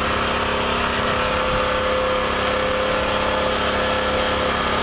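Small generator's gasoline engine running steadily, with a steady hum and even firing. Its fuel line is empty, and the owner tentatively takes it to be running on hydrogen from the HHO electrolyzer.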